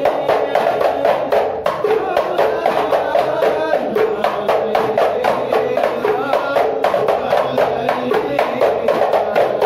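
Hadrah Ishari ensemble: hand-struck frame drums beat a fast, dense rhythm under a group chanting sholawat together.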